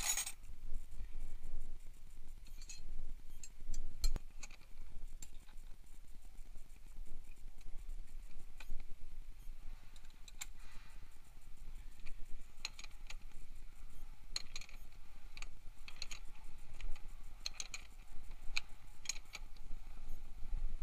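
Steel combination wrenches clinking together as a hand rummages in a toolbox, with a loud clatter right at the start. Then scattered light metallic clicks and taps as a wrench is worked on the wheel's axle nut, more frequent in the second half.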